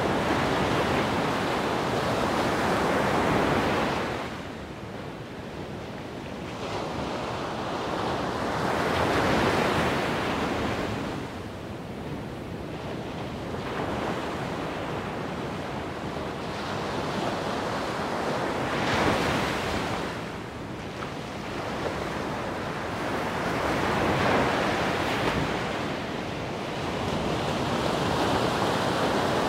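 Wind buffeting the microphone outdoors: a rushing noise that swells and fades in gusts every few seconds.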